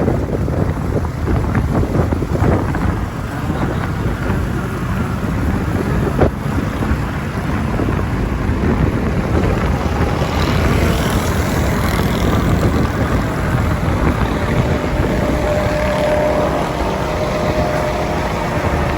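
Wind buffeting the microphone over a steady rumble of road and traffic noise from riding a motorbike. A faint steady whine comes in about three-quarters of the way through.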